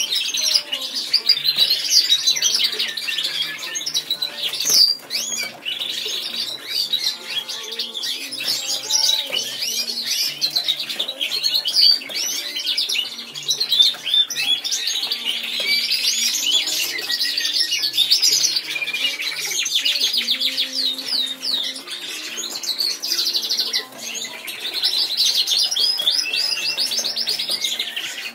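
Caged finch-type songbird singing a long, near-continuous song of fast trills and warbles, broken by brief pauses a few times.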